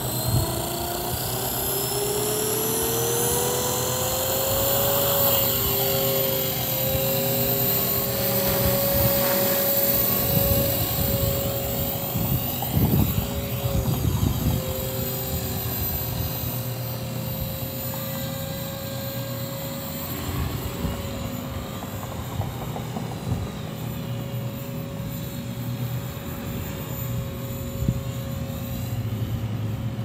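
Walkera V450D03 electric RC helicopter spooling up, its motor and rotor whine rising in pitch over the first few seconds and then holding steady in flight, with a couple of brief dips. Wind gusts rumble on the microphone underneath.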